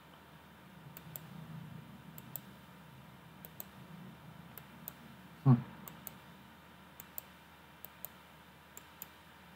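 Computer mouse clicks, mostly in close pairs, about one pair a second. One short, louder low sound comes about five and a half seconds in.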